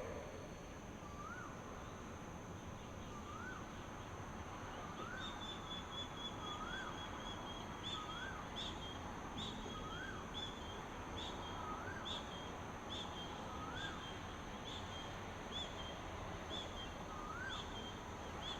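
Outdoor dawn ambience: a bird repeats a short rising whistle about once a second. From about five seconds in, a second, higher call pulses steadily alongside it, over a constant high hum and a background hiss.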